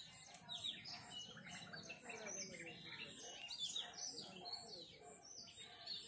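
Several small birds chirping and calling in dense, overlapping short chirps, many of them falling in pitch.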